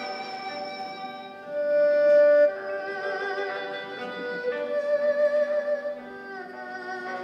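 Chinese traditional ensemble music: an erhu plays a slow, sustained melody with a wavering vibrato over a yangqin (hammered dulcimer), with a dizi bamboo flute in the first part before it stops. One note about two seconds in is held louder than the rest.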